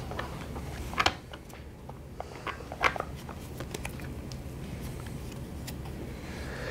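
Cards being drawn from a small card box and handled on a tabletop: a few light clicks and taps, the strongest about a second in and near three seconds, over a steady low room hum.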